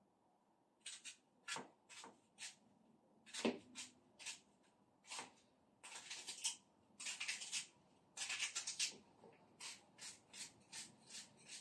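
Small knife cutting through a dry onion held in the hand: irregular short crisp cuts, with quicker runs of several cuts in a row in the middle.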